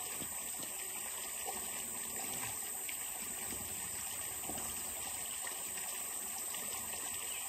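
Creek water flowing steadily, an even rushing sound with no distinct events.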